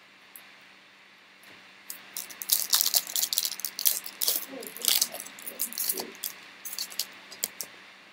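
Foil trading-card pack wrapper crinkling and tearing as it is opened and the cards are slid out. A dense run of sharp, irregular crackles starts about two seconds in and dies away near the end.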